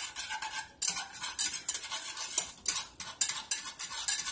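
A utensil stirring melting butter in a small saucepan, scraping and clinking against the pan in quick repeated strokes, about two or three a second.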